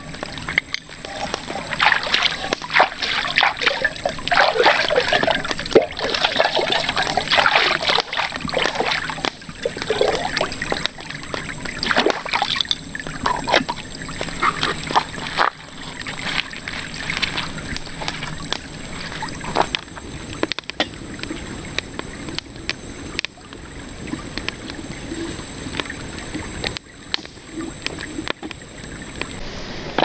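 Water splashing, sloshing and trickling in irregular bursts, busiest in the first half and calmer after about fifteen seconds.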